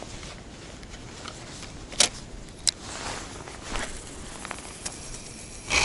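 Steady wind noise, with two sharp clicks about two seconds in and a louder gust near the end.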